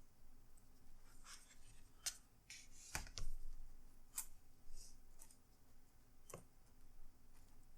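Scattered light plastic clicks and taps as a replacement laptop screen is pressed into place in the lid, with one louder knock about three seconds in.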